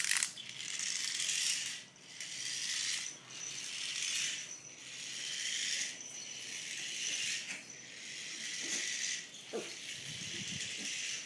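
A small mechanical toy's mechanism whirring and rattling as it moves over a tile floor, in spurts of a second or two with short breaks between them.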